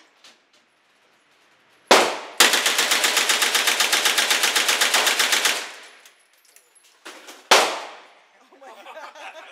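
A single gunshot, then a fully automatic burst of about three seconds at roughly ten rounds a second, echoing in an indoor range. A lone shot follows about two seconds after the burst.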